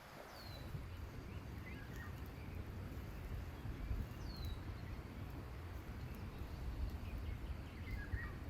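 Steady low rumbling background noise with a few bird calls over it: two short, high, falling whistles and a couple of fainter chirps.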